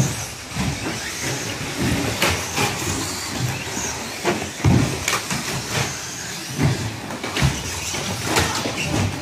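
Electric 1/10-scale short-course RC trucks racing: a mix of high motor whine, tyre noise and repeated sharp knocks and clacks as the trucks land and bump around the track.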